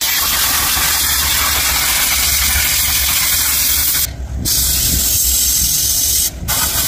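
Loud, steady hiss of a high-pressure jet, cut off briefly twice, about four seconds in and about six and a half seconds in, as the trigger is let go.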